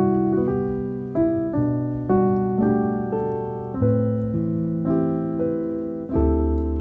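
Background piano music: notes and chords struck about twice a second, each ringing and fading.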